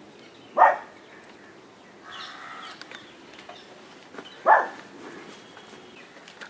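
A bird calling: two short, loud calls about four seconds apart, with softer calling around two seconds in.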